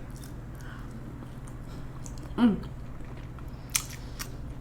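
A person chewing food with the mouth close to the microphone, with a few sharp mouth clicks late on. About halfway there is a short falling "mm" from the eater.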